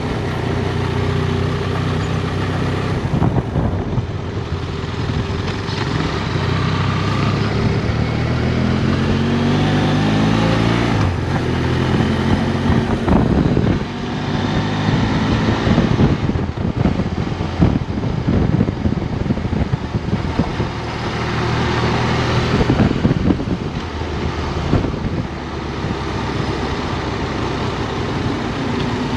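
Motorcycle engine running under way, with wind noise; about eight seconds in it revs up, rising in pitch, then drops at a gear change about eleven seconds in.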